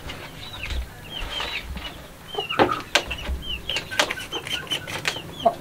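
Chickens clucking and chirping, many short high calls one after another, with a few sharp clicks about halfway through.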